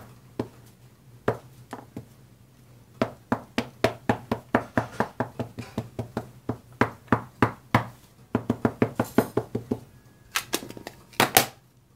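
Plastic-cased ink pad dabbed repeatedly onto a red rubber stamp on a clear acrylic block: runs of light, quick taps, several a second, with short pauses between runs.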